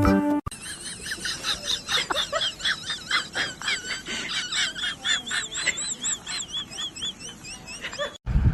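High-pitched bird chirping: many quick chirps in a rapid series, the later ones a steady string of repeated arched notes. It stops suddenly near the end.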